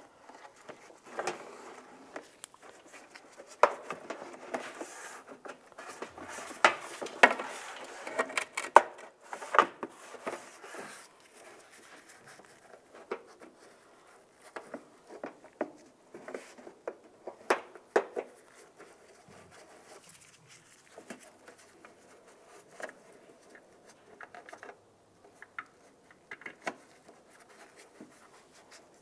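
Plastic inner fender liner of a Volkswagen Jetta being pushed and worked into place in the front wheel well by hand: irregular scraping, rustling and sharp clicks of the flexible plastic. The noise is busiest over the first ten seconds or so and then thins out to scattered clicks.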